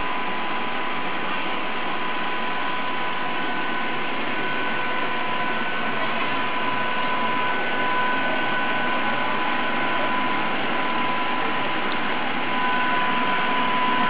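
Wool mill's drum carding machine running steadily: an even mechanical whir with a high whine held at one pitch.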